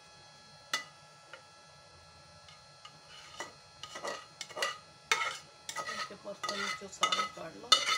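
A spoon stirring and folding a thick custard, fruit and jelly dessert mixture in a bowl, scraping and clinking against the bowl in repeated strokes, about two a second. A single clink comes first, under a second in, and the steady stirring starts about three seconds in.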